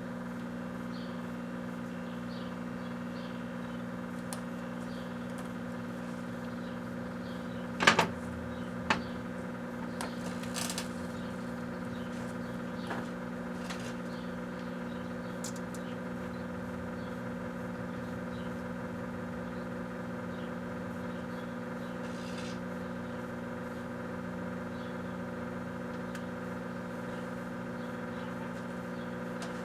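Microwave oven running with a steady hum while a Rubik's Cube heats inside. About eight seconds in comes a loud sharp crack, a second one a second later, then brief crackling.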